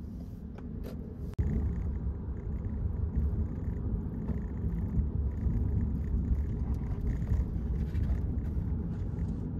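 Low, steady wind rumble and road noise on a camera riding on a motorcycle at cruising speed, with the bike running underneath. The noise jumps louder at a cut about a second and a half in.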